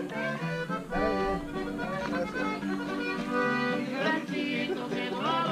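Music with an accordion-like melody over steady held chords.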